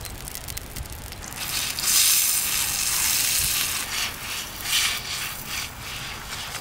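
Water hissing on a hot iron griddle while a stick broom scrubs across the wet surface. The hiss is loudest from about one and a half to four seconds in, then breaks into short separate sweeps.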